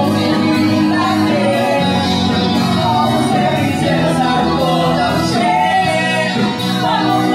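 Live band playing a pop song on keyboard and guitar through a PA, with a female singer's voice over it.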